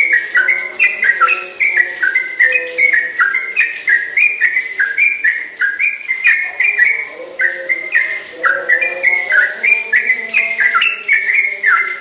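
Caged yellow-vented bulbul (trucukan) singing a long unbroken run of clear whistled notes, each sliding down in pitch, several a second; the run stops right at the end.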